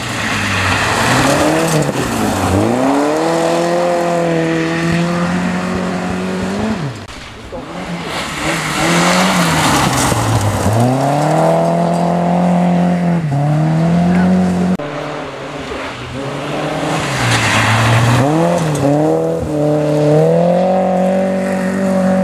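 Volvo rally cars coming through a gravel stage one after another, engines revving hard. The pitch drops and climbs back up about three times as the drivers lift and accelerate through the corner, with tyres scrabbling on the loose gravel.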